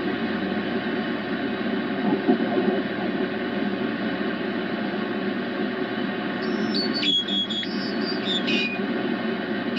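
Grundig Satellit 750 shortwave receiver giving out steady 20-meter band static as it is tuned across the band. From about two-thirds of the way in, a single-sideband voice comes through off-tune as warbling tones that jump in pitch with the tuning.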